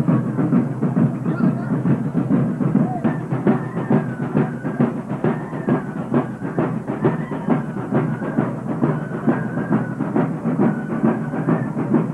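Procession music: rapid, steady drumming, with a thin, high melody played over it from about three seconds in.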